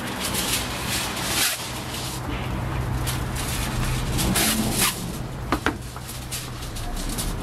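Aluminium foil crinkling and rustling as a sheet is pulled off the roll, torn off on the box's cutter edge and smoothed flat on a steel counter, in several bursts with a few sharp crackles a little past halfway. A low steady hum runs underneath.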